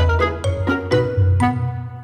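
Background music: a light intro tune of plucked notes, about two or three a second over a steady bass, with the last note ringing away near the end.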